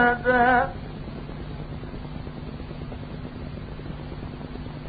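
A male reciter's chanted Quran recitation ends a held, wavering note under a second in. Then there is only the steady hiss and low hum of the recording in the pause between phrases.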